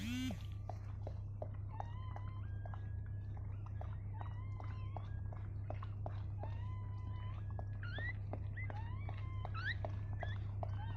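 Newborn puppy giving repeated thin, squeaky cries, some rising in pitch, coming more often near the end, with soft wet clicks as the mother dog licks it. A steady low hum runs underneath.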